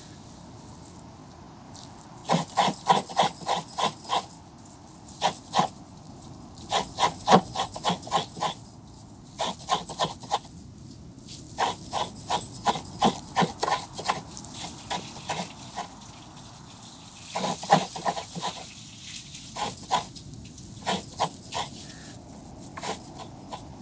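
Fresh coconut being scraped by hand into an earthen bowl: bursts of quick rasping strokes, about four a second, each run of strokes broken by short pauses.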